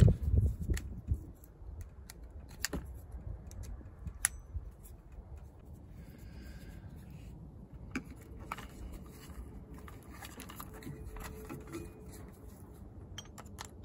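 Scattered small clicks and scrapes of a screwdriver and a wire being worked into the screw terminals of a plastic trailer-hitch socket, over a steady low rumble.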